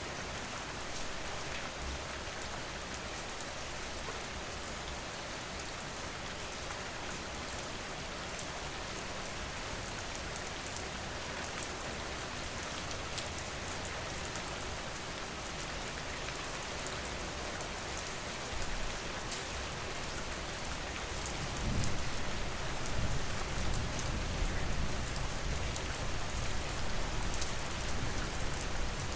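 Steady, dense rainfall pattering on a surface. About three-quarters of the way in, a deeper low rumble joins under the rain and the whole sound grows a little louder.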